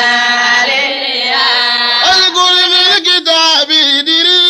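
A voice chanting a religious verse in a melismatic, prayer-like style. It holds long wavering notes at first, then breaks into quicker sung syllables about two seconds in.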